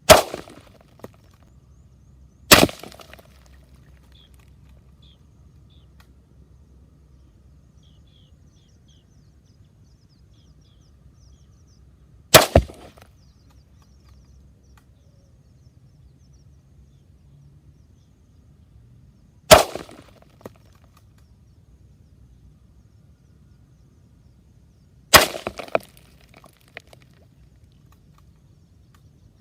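Five shots from a CZ 452 bolt-action .22 LR rifle firing high-velocity hollow-point rounds, each a sharp crack with a short echoing tail. The first two come about two and a half seconds apart, and the other three follow at gaps of several seconds.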